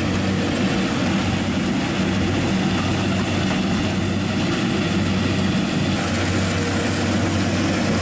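Combine harvester running steadily: an even engine hum with a constant noise of working machinery over it.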